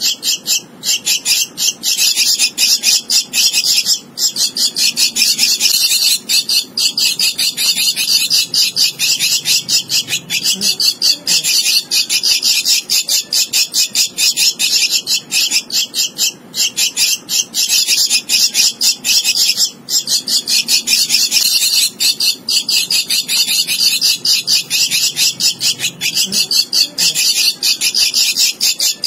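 Javan myna chick begging: a rapid, high-pitched train of short chattering calls, broken by brief pauses every few seconds.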